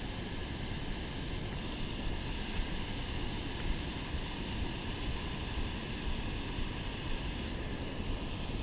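Steady rush of water pouring over a river spillway weir, with wind buffeting the microphone.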